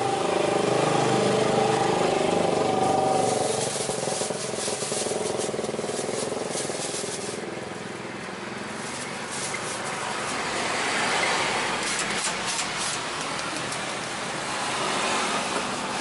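Road traffic going by: a motor vehicle engine runs steadily at the start and fades after about four seconds, then another vehicle swells and passes about eleven seconds in. Light clicks and taps of kitchen utensils come in between.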